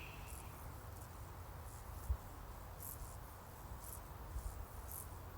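Faint, irregular high-pitched chirps of insects in the grass, over a steady low rumble with a brief low bump about two seconds in.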